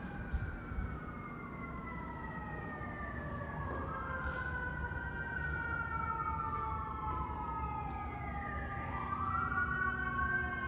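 Emergency vehicle siren wailing, its pitch sweeping slowly up and down every four to five seconds, with more than one siren tone overlapping. It grows louder toward the end.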